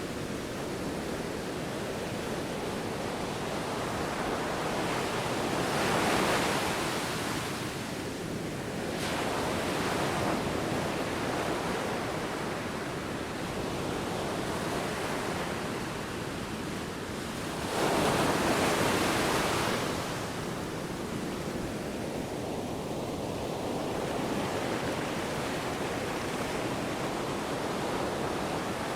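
Sea waves washing in, a steady rush of surf with two louder surges, one about six seconds in and a stronger one near two-thirds of the way through. Wind is mixed in.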